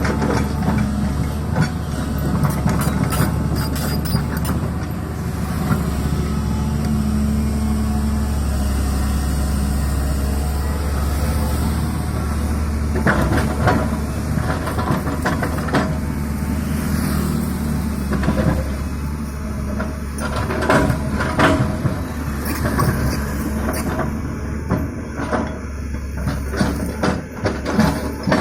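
Diesel engine of a JCB earthmoving machine running steadily under work, with scattered knocks, mostly around the middle and near the end.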